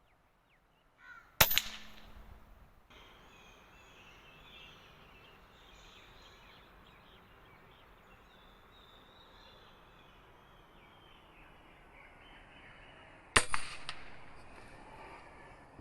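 Two sharp air rifle shots, one about a second and a half in and one near the end, with crows cawing between them.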